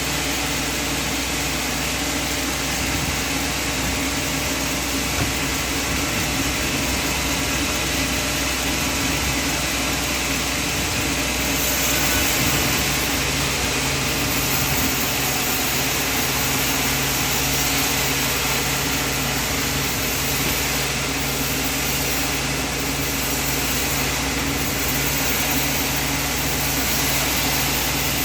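Sawmill machinery running steadily: a continuous engine-like hum with a broad hiss over it, a little louder and brighter from about twelve seconds in.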